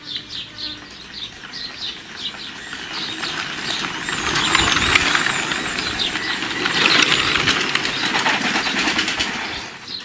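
Homemade electric bicycle driven by a washing-machine motor riding past on a dirt lane: a whirring, rattling run of motor, frame and tyres that grows louder from about four seconds in as it passes close, then eases off near the end.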